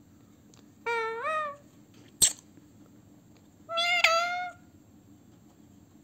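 Indian ringneck parakeet giving two drawn-out calls about three seconds apart, each rising in pitch and then holding, with a single sharp click between them.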